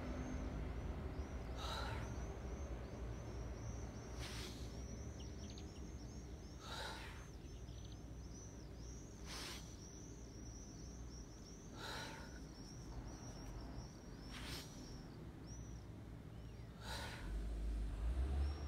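Strong, audible breaths from a person doing yoga: a sharp breath about every two and a half seconds, paced with each repetition of a sitting-to-tabletop exercise. A faint high, rapid chirping runs through the middle, over a low steady background rumble.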